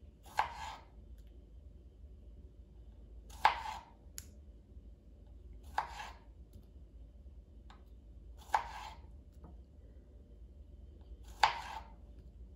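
Kitchen knife slicing through cherry tomatoes onto a plastic cutting board: five sharp cuts, one about every three seconds, each with a short tail.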